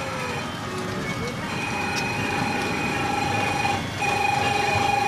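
A steady electronic tone with a fast buzzer-like pulse sounds for about two seconds, stops briefly, then sounds again. Under it is the general noise of an outdoor amusement park, around a small kiddie Shinkansen train ride.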